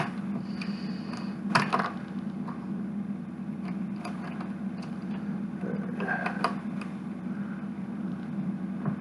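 Plastic LEGO pieces clicking and clattering as they are handled, with a sharp cluster of clicks about one and a half seconds in and another about six seconds in, over a steady low hum.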